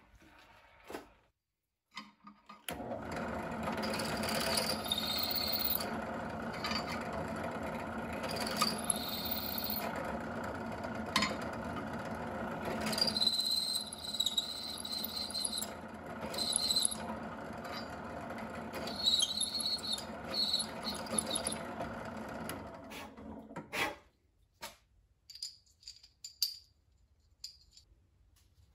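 Drill press motor running steadily while the bit cuts into the aluminum beater bar, recessing its screw holes, with high squeals each time the bit bites. It starts a few seconds in and stops near the end.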